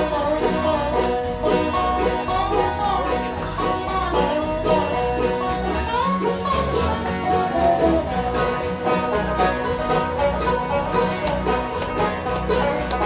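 Live gospel band playing an instrumental break between sung verses, a bluegrass-style string band with plucked strings carrying a quick melody.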